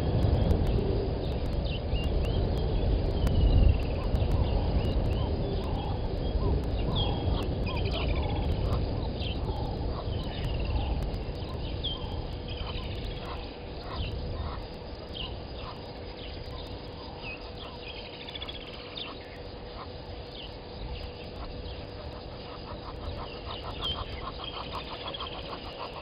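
Wild birds chirping with many short, falling notes, over a low rumble that fades about halfway through. Near the end a rapid, even trill comes in.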